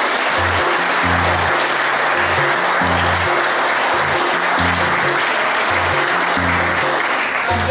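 Audience applauding loudly, the clapping starting and stopping abruptly, over background music with a steady repeating bass line.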